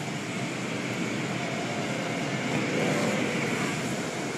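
Automatic car wash running around the car: a steady rushing, rumbling noise of the spinning cloth brushes and wash equipment, heard from inside the car and swelling a little about halfway through.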